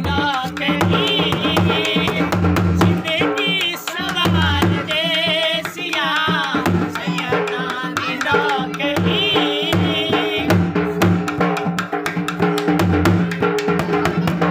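Men singing a devotional qasida with a wavering vibrato, accompanied by a dhol drum beating a steady rhythm.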